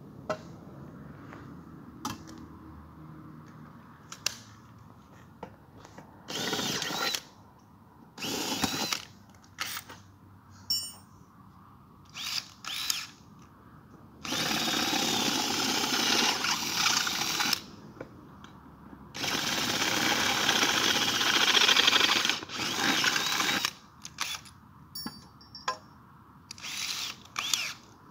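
Cordless drill boring into black aluminium door profile in repeated bursts: a few short runs, then two longer runs of about three and five seconds in the middle, then short bursts near the end.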